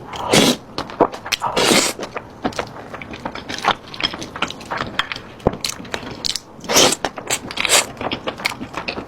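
Close-miked eating sounds: a dense run of short wet clicks and crackles from chewing, broken by a few louder, longer crunching bursts.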